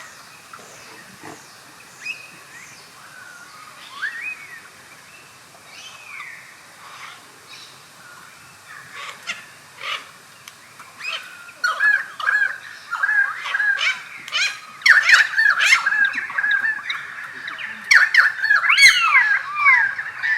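Pied currawong calling in gliding, whistled notes that rise and fall. The notes come singly in the first half, then from about 11 seconds in turn into a dense, louder run of quick notes.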